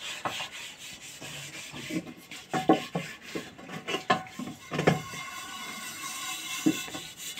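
Dishes being washed by hand: steel pots scrubbed and scoured, a rubbing, scraping sound with scattered knocks and clinks of the pots.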